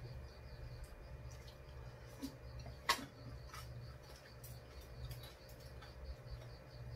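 Quiet mealtime sounds: a sharp click of a utensil against tableware about three seconds in, with a few softer clicks around it, over a steady low hum and a faint, high, pulsing chirp.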